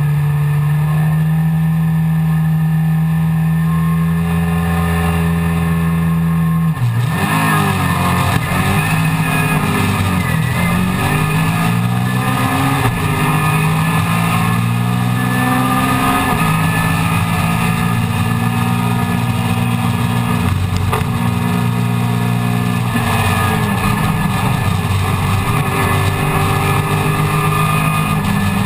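Mini Miglia race car's A-series four-cylinder engine heard from inside the cockpit, held at steady high revs on the start line. About seven seconds in the car launches, and the engine note rises and falls through quick gear changes as it accelerates away and races on.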